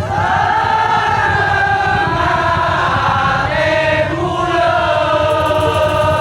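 A Madurese daul (tongtong) ensemble playing: a sustained, wavering melody held over continuous low drumming.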